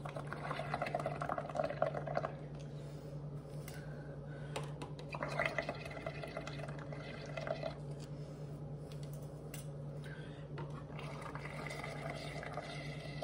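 Blowing through a straw into cups of soapy, paint-tinted water: bubbling gurgles in three bouts, one cup after another, as the foam rises over the rims.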